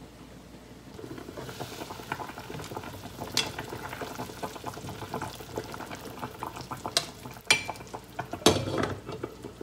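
A pot of pig's trotters simmering in braising broth, bubbling and crackling from about a second in, while long chopsticks stir and knock the trotters against the pot. There are a few sharper knocks, with the loudest clatter near the end as the glass pot lid is handled.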